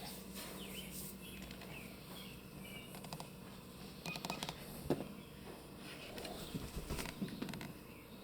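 Faint bird chirps early on, then scattered light clicks and rustling, all at low level.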